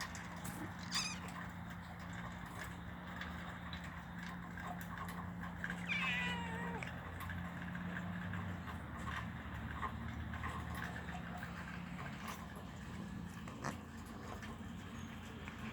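Small stray cat making squeaky meows: a short one about a second in and a longer, wavering one around six seconds in.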